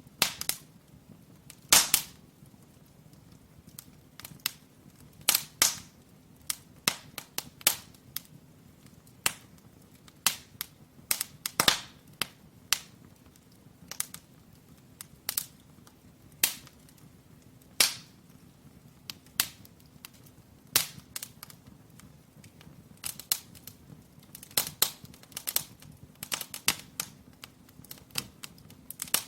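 Firewood crackling and popping as it burns in a brick fireplace: sharp cracks at irregular intervals, some much louder than others, over a faint steady background.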